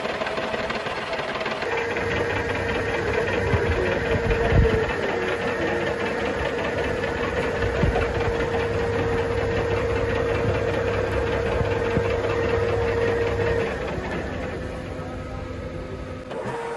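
Metal lathe running, turning a welded-up truck hub spindle, with a steady whine that comes in about two seconds in and stops a few seconds before the end. One thump stands out about four and a half seconds in.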